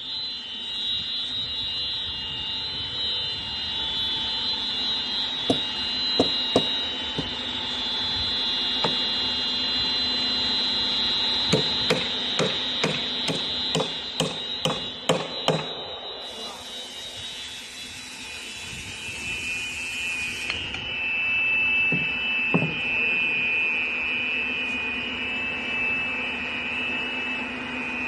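Hammer blows, a few strikes and then a run of about ten at roughly two a second, over a steady high-pitched machine whine. A brief hiss comes in past the middle.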